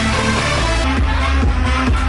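Loud electronic dance music with heavy bass; a steady kick beat of about two a second comes through from about a second in.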